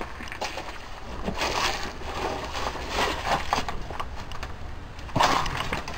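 Footsteps crunching and scuffing over debris with rustling of clothing and camera handling: several short noisy scrapes, the loudest about five seconds in.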